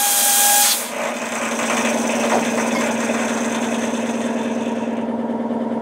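A short blast of compressed air hissing with a faint whistle, cutting off about a second in, followed by a motor-driven machine running with a steady hum.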